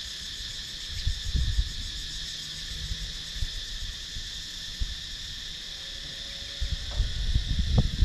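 Steady, high-pitched chorus of cicadas droning without a break. Gusts of wind rumble on the microphone about a second in and again near the end.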